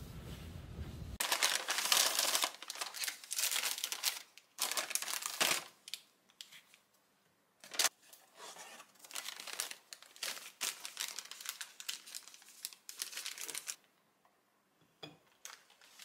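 Paper food wrapping crinkling and rustling in irregular bursts as it is handled and opened, with a few sharp clicks among them. A low rumble comes just before the crinkling starts.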